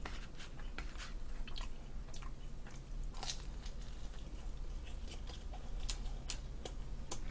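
Close-up eating of a slice of pizza: a bite followed by chewing, heard as scattered small sharp clicks, smacks and crunches of the crust.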